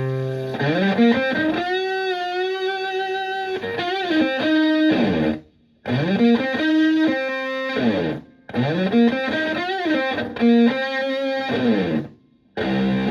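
Electric guitar (Stratocaster) through a Tone Bender MKI-style fuzz pedal into a Twin Reverb-style amp, giving a thick, buzzy distorted tone. It holds a low note, then plays a single-note lead line with slides and wide vibrato, stopping dead into short silences three times.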